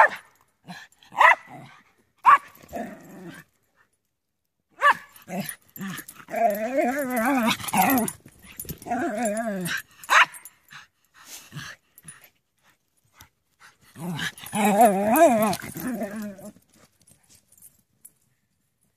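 Dogs barking and growling as they play: short sharp barks scattered through, and longer wavering growls, the last about two-thirds of the way in.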